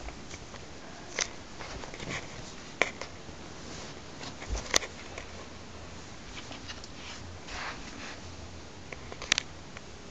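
Handling noise from a plastic Penny skateboard being moved and picked up: a few scattered light knocks and clicks amid soft rustling, the sharpest about halfway through and again near the end.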